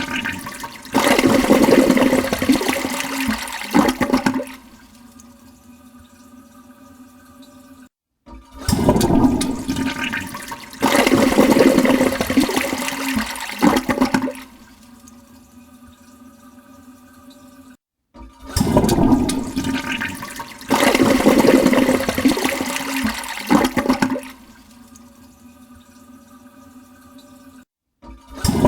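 Toilet flushing three times in a row, about ten seconds apart. Each flush is a loud rush of water lasting about four seconds that drops to a quieter steady hiss.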